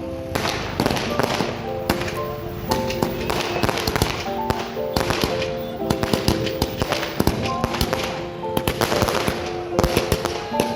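A string of firecrackers crackling in rapid, irregular cracks, densest near the end, over music playing a melody of held notes.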